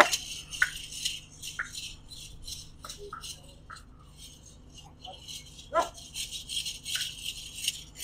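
Small bells on a bull jingling rapidly and continuously as it is run, with a few brief shouts from the handlers.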